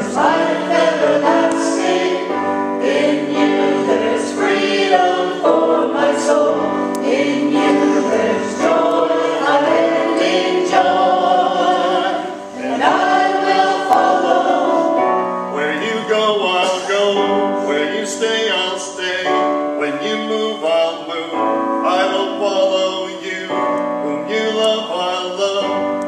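Group of voices singing a contemporary worship song with instrumental accompaniment.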